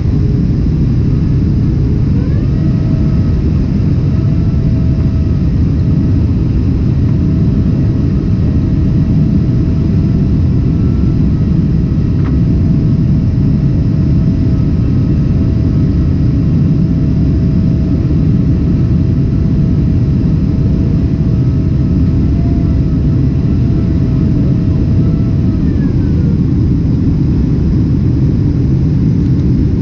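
Boeing 767 jet engines heard from inside the cabin: a loud, steady roar with a thin whine that rises about two seconds in, holds, and falls away near the end.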